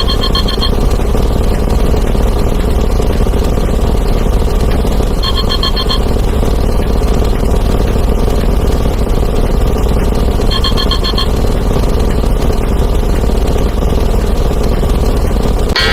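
A dense, steady wall of noise from many overlapping sound effects, explosions and breaking glass stacked on top of one another. Over it, a short trilling ring repeats about every five seconds, three times. A different, denser alarm-clock ring starts right at the end.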